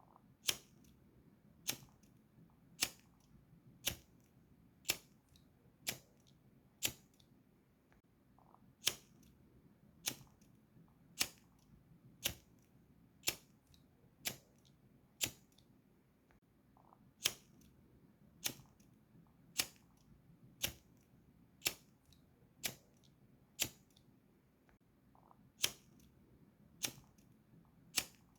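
Gas lighter's igniter clicked over and over, one sharp click about every second, with a few short pauses between runs of clicks.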